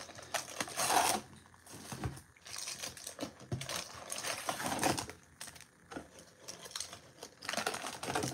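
Trading card packs in crinkly plastic wrappers being lifted out of a cardboard hobby box and handled, a run of irregular rustles, light taps and scrapes, loudest about a second in and again near the end.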